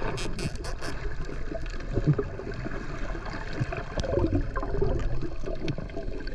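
Muffled underwater water noise with irregular gurgling and bubbling, and a few sharp clicks in the first second.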